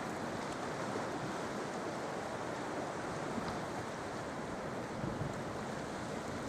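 Sea surf washing onto the shore in a steady rushing wash, with no single wave crash standing out.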